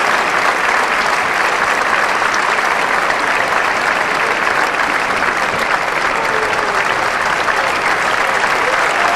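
Large theatre audience applauding steadily, a dense even clapping of many hands.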